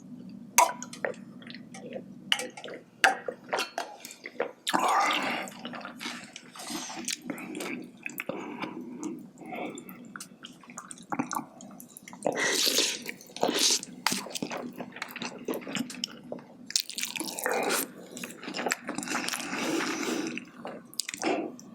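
Close-miked eating of spicy braised chicken (jjimdak) with glass noodles: irregular wet chewing, smacking and squishing mouth sounds with scattered sharp clicks.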